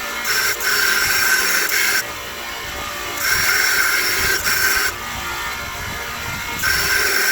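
Belt grinder with a 60-grit ceramic belt grinding a thick forged steel knife blade, in three loud passes of about two seconds each, with the machine running more quietly between passes.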